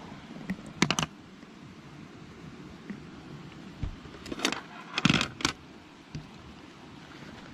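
Plastic play-dough tools clicking and clattering on a table as a child handles them: a few sharp clicks about a second in, then a longer clatter between about four and five and a half seconds.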